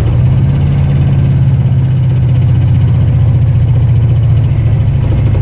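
1974 Ford F250 pickup's engine idling steadily, a loud even low hum with no change in speed.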